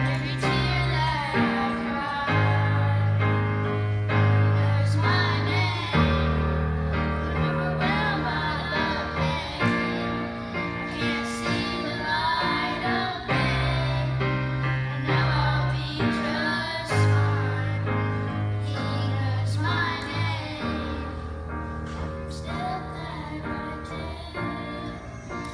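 Three boys singing a worship song together in unison, with electric keyboard accompaniment playing held chords that change every one to two seconds.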